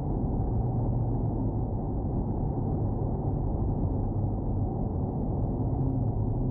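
Steady, dull low rumble inside a 2019 Corvette Stingray's cabin cruising at highway speed (about 80 mph): the 6.2-litre LT1 V8 engine together with tyre and road noise, picked up by the dash cam's microphone.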